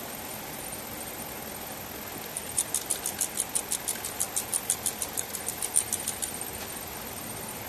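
A quick series of about twenty sharp, high clicks, roughly five a second, lasting about four seconds, over a steady hiss.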